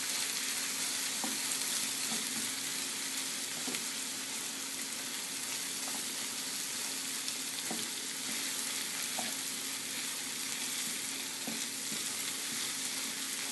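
Ground pork, minced shrimp, onion, wood ear mushroom and jicama sizzling steadily in an oiled pan as they are stir-fried, with a few faint clicks scattered through.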